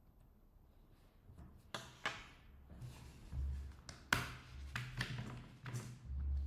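A screwdriver backing out a laptop's bottom-panel screws, with handling of the laptop and loose screws. Near silence at first, then from about a second and a half in a run of sharp taps, clicks and short scrapes.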